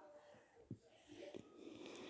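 Near silence, with faint handling noise as packaged household goods are moved about and a soft knock just under a second in.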